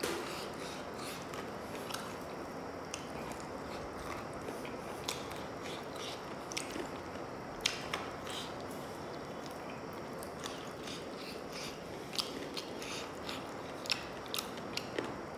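Close-miked mouth sounds of a person eating, biting and chewing at a chicken leg piece: irregular sharp clicks and smacks over a steady low hiss.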